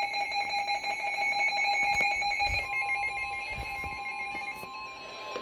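Emergency alert tones announcing a severe thunderstorm warning: a rapidly pulsing electronic alarm made of several steady pitches. About two and a half seconds in, a single steady tone comes in and the pulsing alarm fades out.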